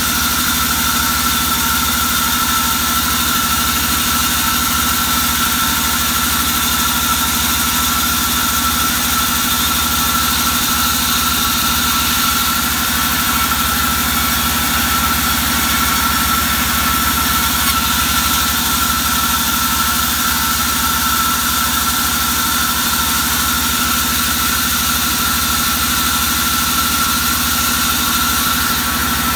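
Sawmill band saw running steadily: a constant machine hum with a steady high whine, unchanged throughout.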